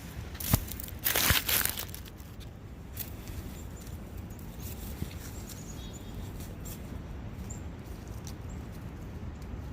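Forest ambience beside a brook: a steady rush of flowing water, with a few loud crunching rustles in the first two seconds and faint high chirps later on.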